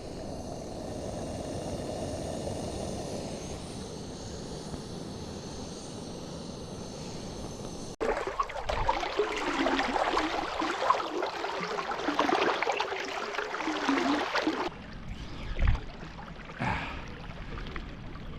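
A steady rushing noise, then after an abrupt cut about eight seconds in, louder splashing and rushing water that eases off near the end.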